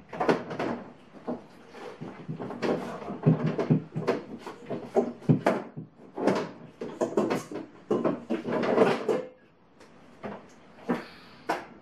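Kitchen clatter: many quick knocks and clicks of things being handled, as of cupboard doors, drawers and dishes, with a short quieter pause near the end.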